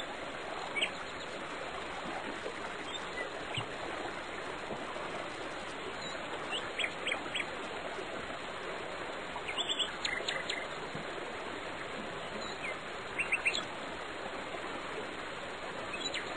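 Birds chirping in short scattered calls, some in quick clusters, over a steady rush of flowing water.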